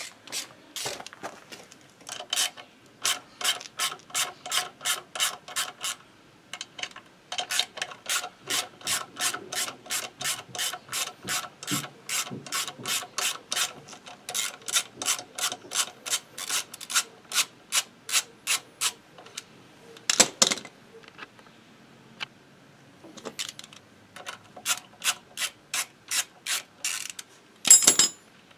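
Hand ratchet wrench clicking in long runs, about three to four clicks a second, as it is swung back and forth undoing a bolt on a Motobécane AV89 moped engine. The runs pause now and then, and there are two louder single knocks, the second near the end.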